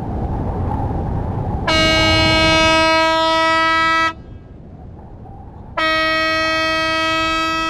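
A vehicle horn sounding two long, steady blasts, the second longer than the first, over a low steady rumble.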